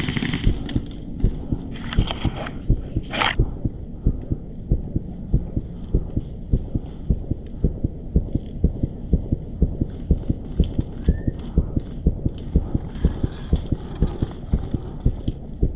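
Steady footsteps thudding about two to three times a second, picked up close by a body-worn camera as the player walks. A short sharp noise cuts in about three seconds in.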